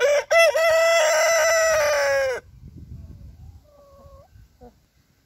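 Buff Orpington rooster crowing: a couple of short opening notes, then one long held note that drops in pitch and cuts off about two and a half seconds in. Quieter chicken calls follow.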